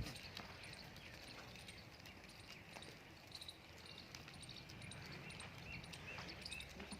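Faint outdoor ambience: small high chirps repeating irregularly over a low steady hum.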